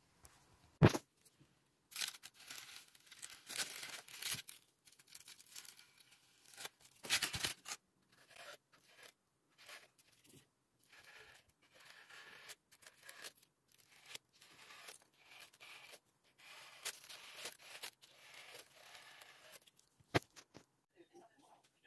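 Styrofoam being carved and scraped with a hand tool: a run of irregular scratchy, tearing strokes, with a sharp knock about a second in.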